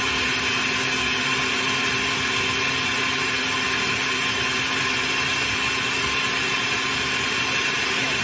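Countertop blender running steadily at speed, its motor giving a constant hum as it blends a smoothie of frozen banana and mango, spinach and milk.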